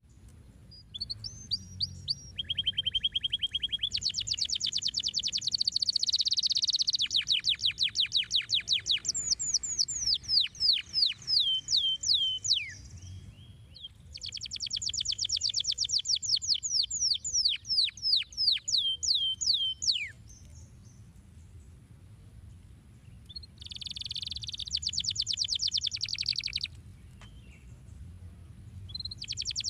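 Canary singing in long phrases of very rapid trills: fast runs of repeated high notes and runs of quick downward-sweeping notes. The song breaks off for a few seconds about two-thirds through, gives a short trilled phrase, then pauses again near the end.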